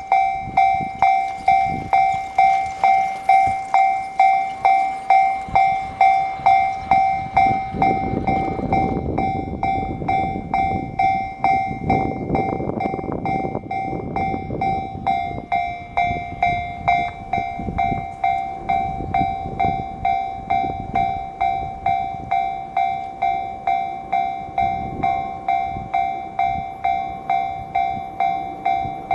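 Japanese level crossing warning alarm ringing steadily at about two rings a second, while a JR Yamanote Line E235 series electric train passes with a rumble of wheels on the rails that swells strongest about a third of the way in.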